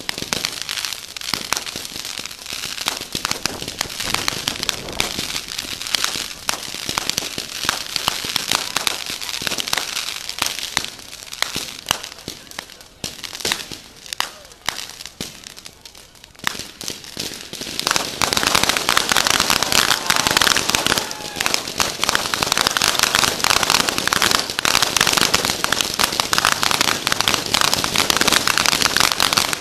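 Fireworks crackling and popping in a rapid, uneven run that eases off around the middle. About eighteen seconds in, a louder, dense crackle and hiss of ground spark fountains and crackling stars sets in and keeps going.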